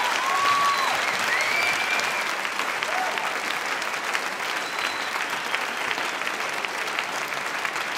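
Crowd applauding, a dense patter of clapping that slowly dies down, with a few whistles in the first couple of seconds.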